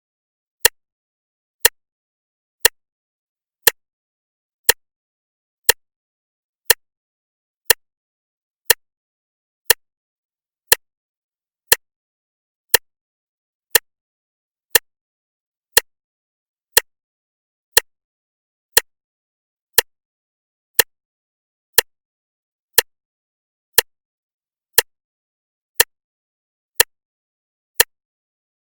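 Clock ticking steadily once a second, each tick a sharp, short click with silence between.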